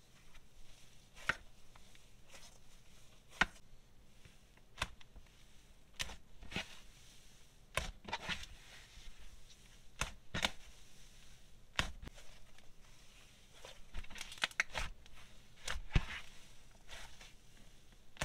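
Hands stretching and pressing an icy slime with a little wet residue, making irregular sharp crackles and pops.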